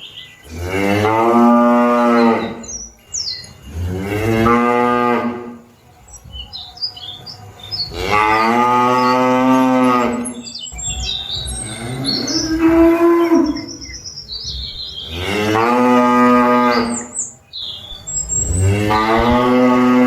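Cattle mooing over and over: about six long moos, each lasting one to three seconds, with a higher-pitched one near the middle. Small birds chirp faintly in the gaps.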